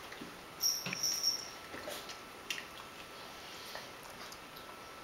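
A toddler gnawing on a corn on the cob, making small wet mouth noises and a few soft clicks in the first couple of seconds, then only faint room tone.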